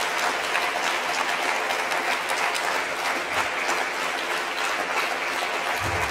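Audience applauding steadily: many hands clapping together.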